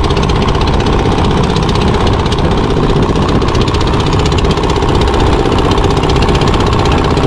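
A fishing launch's diesel engine running steadily and loudly at close range, a fast, even knocking clatter.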